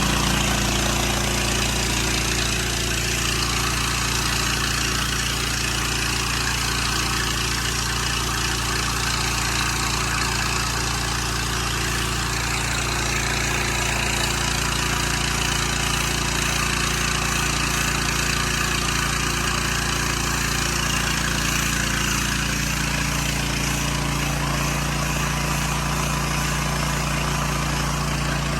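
Pressure washer's gas engine running at a steady speed, with the steady hiss of water spraying from the wand.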